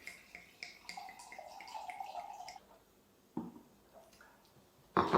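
Liquid poured into a glass for about a second and a half, after some small clinks, followed by two knocks, the second louder, near the end.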